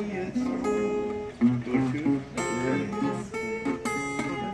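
Acoustic guitar played by hand: a string of strummed chords and picked notes, each chord struck sharply and left to ring.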